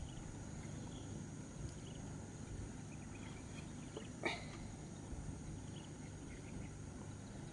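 Quiet open-air ambience with faint, scattered high chirps and a single sharp knock about four seconds in.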